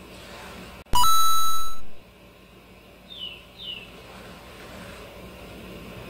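A driver strikes a teed golf ball with a sharp crack about a second in, followed at once by a loud electronic beep lasting under a second. A little later come two short falling chirps.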